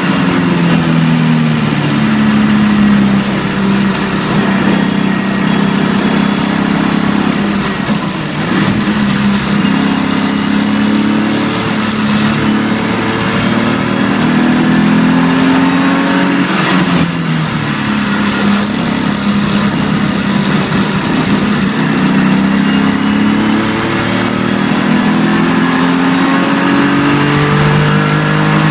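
BMW E46 325ti Compact's 2.5-litre straight-six engine, heard from inside the cabin while driving hard on a wet track. Its pitch climbs repeatedly as the car accelerates and drops steeply twice, about eight and seventeen seconds in, over a steady hiss of tyre and road noise.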